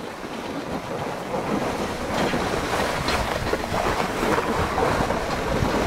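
Snow tube being towed up a tubing hill, its underside sliding over packed, groomed snow with a steady rushing noise, mixed with wind on the microphone.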